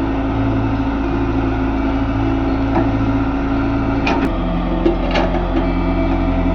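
L&T Komatsu PC130 excavator's diesel engine running steadily, its note changing about four seconds in, with a couple of sharp knocks soon after.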